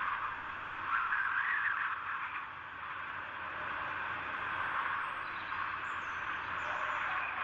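Steady wind hiss, a little louder about a second in, with a few faint high bird chirps about six seconds in.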